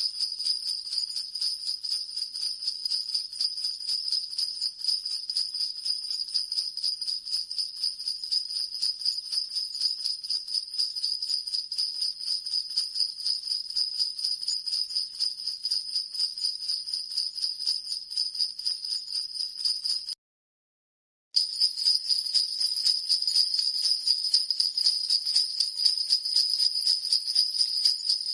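Sleigh bells (jingle bells) shaken continuously in a fast, even jingling. The jingling stops dead for about a second roughly two-thirds of the way through, then starts again slightly louder.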